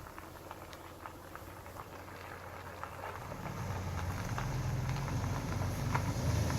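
A boat's motor running with a low, steady hum that comes in about halfway and grows louder, after a stretch of light scattered clicks and patter.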